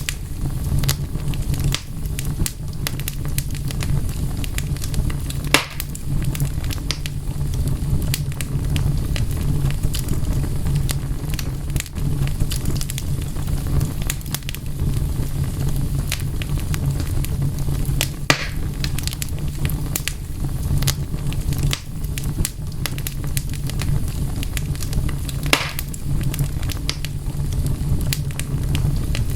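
Wood fire crackling: frequent small snaps and pops over a steady low hum, with three louder pops spread through.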